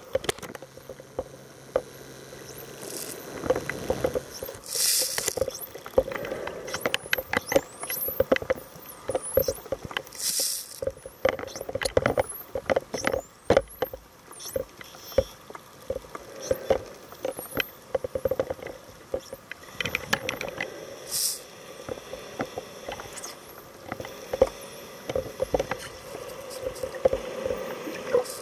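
Dolphins heard underwater: thin high whistles sweeping up and down, mixed with rapid clicks and click trains, and a few louder rushing hisses.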